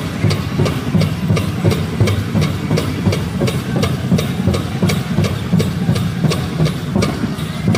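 Powwow drum group striking a large shared drum in a fast, even beat, about three strokes a second, with the male singers' voices chanting a Chicken Dance contest song over it.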